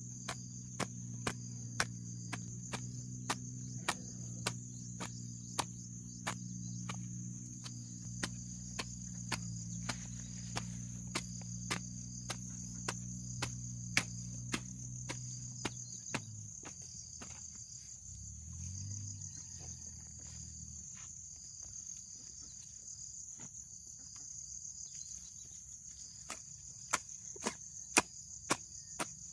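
A hand hoe chopping into grass and soil in repeated strokes, roughly one every half second to second, with a steady high chirring of crickets behind. A low hum stops about halfway through.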